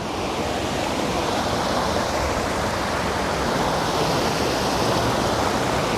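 Waterfall in heavy flow from rain and snowmelt, a steady loud rushing of water that swells over about the first second, then holds.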